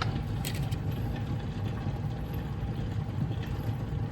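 A steady low machine hum, like a motor running, with a few light clicks about half a second in.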